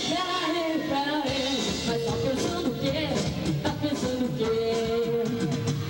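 Band music: drums keeping a steady beat under a melody with long held notes.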